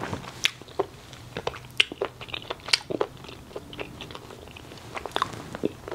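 Close-miked chewing of a mochi: irregular sharp mouth clicks and smacks.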